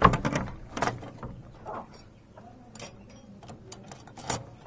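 Rusty iron door chain and latch clinking and rattling against a wooden door as the door is fastened shut: a handful of separate metallic clinks, the loudest at the start and another about four seconds in.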